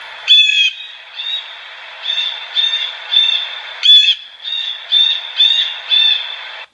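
A bird giving about ten short, harsh calls in quick succession over a steady background hiss, cutting off abruptly near the end.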